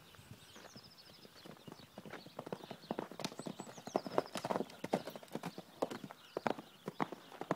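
Hoofbeats of two Irish cob horses running over dry, bare earth, an irregular patter that grows louder from about two seconds in as they pass close by.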